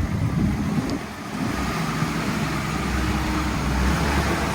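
1965 Ford Mustang's engine running. It is rough and uneven for the first second, dips briefly, then settles into a steady low running note.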